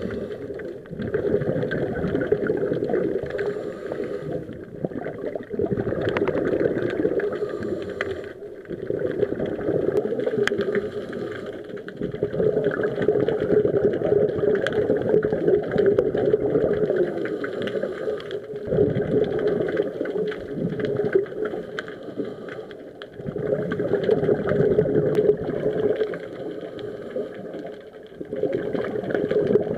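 Underwater rumble of a scuba diver's exhaled bubbles, swelling and easing every few seconds with the breathing, with scattered faint clicks over it.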